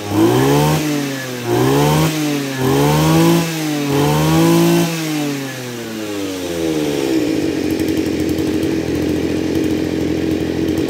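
Kawasaki TJ27 27cc two-stroke brush cutter engine, its metal blade spinning, revved up and back down about four times in quick succession, then dropping to a steady idle about seven seconds in.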